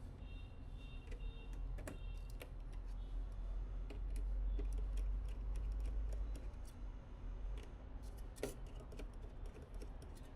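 Light, irregular clicks and taps of computer parts and cables being handled during a PC build, with one sharper click about eight seconds in, over a low rumble.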